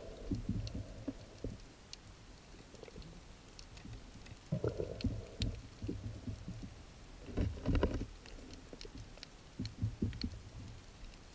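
Muffled underwater knocks and clicks from a speargun and its shooting line being handled, with a speared fish on the line. They come in short clusters, about a second in, near the middle, and again later, with quieter stretches between.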